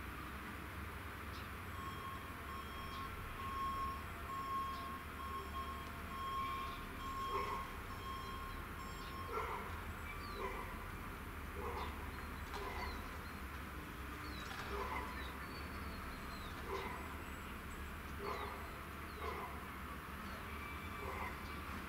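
A dog barking repeatedly, in separate single barks, over a steady low hum. A high pulsing beep sounds for several seconds before the barking starts.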